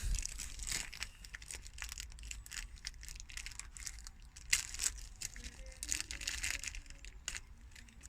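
Crinkling and rustling of plastic parts packaging, irregular and crackly, as hands handle the bags holding the new coolant transfer-pipe O-rings.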